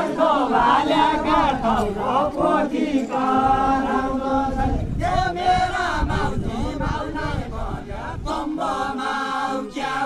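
A group of men singing a Deuda folk song together in a chant-like unison, in long held phrases with short breaks between them.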